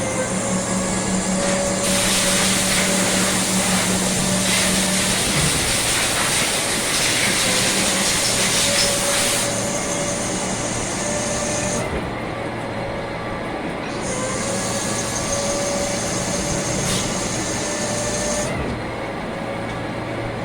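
CNC lathe running through a machining cycle: steady motor and spindle hums, with a loud hiss from about two seconds in that stops near ten seconds. The sound eases briefly twice later on.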